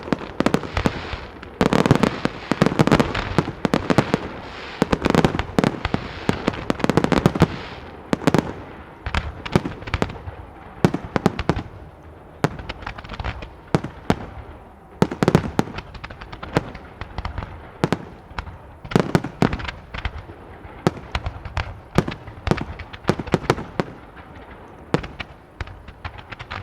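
Large professional aerial fireworks display: shells bursting in rapid volleys, with heavy overlapping bangs for the first several seconds, then a quicker string of separate sharp reports.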